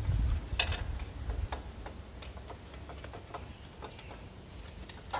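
Light, irregular metallic clicks and ticks as the 18 hp Kohler engine of an Ariens Zoom 1840 zero-turn mower is turned over by hand at the flywheel, with a screwdriver resting on the piston through the spark plug hole; a low rumble in the first second or so. It is a check that the piston still moves, and it does.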